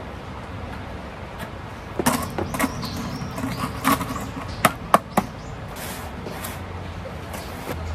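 Scattered sharp clicks and knocks of hard objects being handled, irregular, with the two loudest knocks about five seconds in, over a low steady hum.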